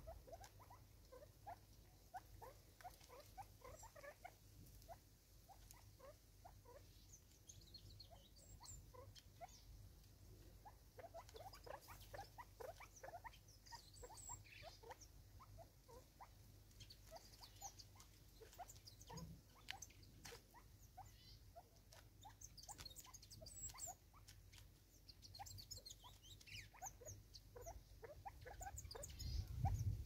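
Francolins pecking food off a wooden stump: many faint, quick, irregular taps and scratches, with faint high bird chirps in the background.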